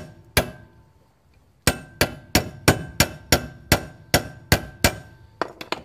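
Hammer striking the end of a manual impact driver set in a brake disc locator screw, metal on metal with a ringing clang. Two blows, then a steady run of about ten blows at about three a second, then a few lighter quick taps near the end.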